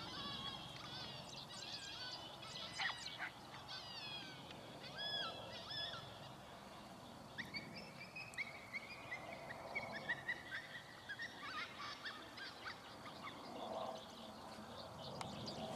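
Scattered high-pitched animal calls, many short ones close together in the first half, then a few longer falling calls.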